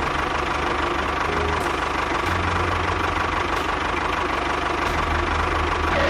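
A small engine running steadily at idle with a fast, even firing rhythm, over background music.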